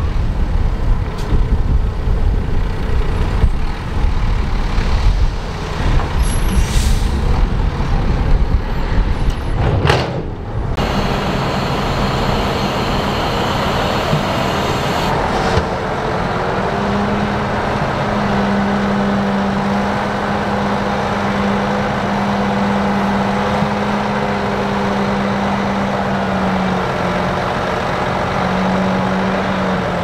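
Bulldozer's diesel engine working under load with rumbling and knocking from its tracks and blade for about ten seconds. The sound then changes suddenly to a steady engine drone.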